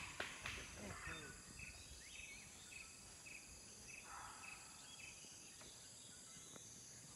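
Faint outdoor ambience: a steady high-pitched insect drone, with a faint short chirp repeating about twice a second through the middle and a few soft knocks in the first second.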